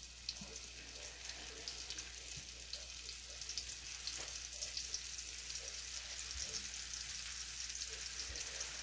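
Flour-dredged venison steaks frying in hot bacon grease in a skillet: a steady crackling sizzle of many small pops. A second steak is laid into the oil partway through.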